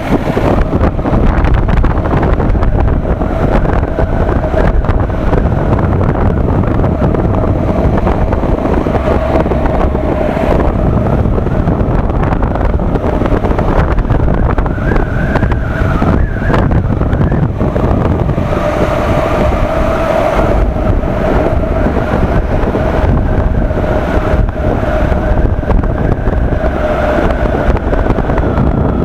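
Honda motorcycle on the move: loud, steady wind rush over the microphone mixed with the engine's running note, which wavers a little in pitch as the speed changes.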